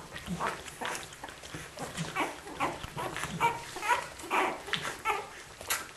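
Week-old Australian Kelpie puppies squeaking and whimpering in quick, short cries, two or three a second, as their mother tends them.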